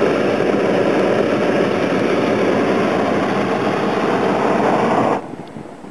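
Hot-air balloon's propane burner firing in one long, loud, steady blast that cuts off suddenly about five seconds in.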